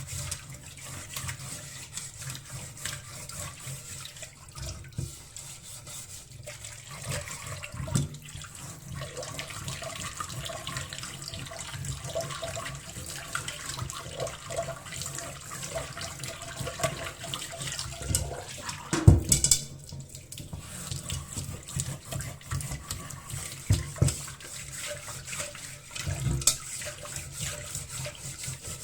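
Water running from a tap into a sink, with scattered knocks and clatter of things being handled in the water; one louder knock comes about two-thirds of the way through.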